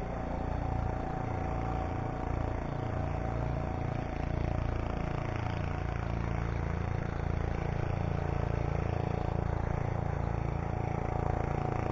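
Small fishing boat's engine running steadily at cruising speed, a little louder from about four seconds in.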